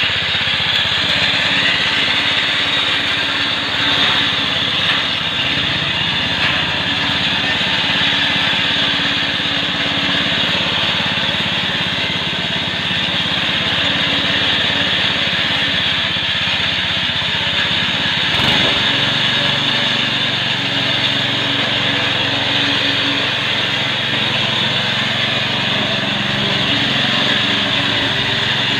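Small petrol engine of a homemade walk-behind grass cutter running steadily at working speed while it is pushed through tall grass.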